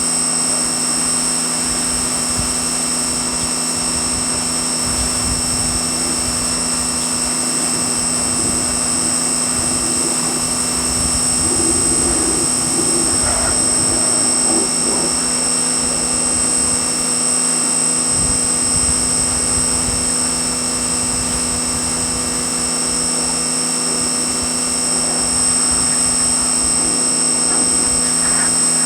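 Pressure washer running steadily, a constant mechanical drone with a high steady whine.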